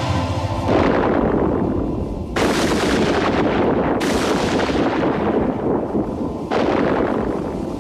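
A steady mechanical hum gives way, about a second in, to a series of four heavy booms like cannon fire or thunder, each hitting suddenly and rumbling away over a second or more, roughly every one and a half to two and a half seconds.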